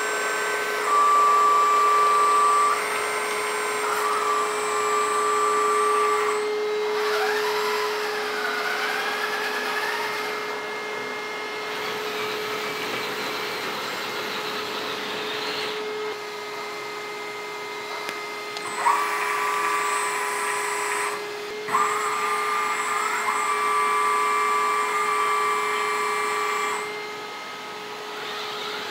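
Hydraulic pump of a 1/14-scale RC excavator (LESU Komatsu PC360) whining steadily. The whine shifts in pitch and level in steps every few seconds as the boom, arm and grapple claw are worked.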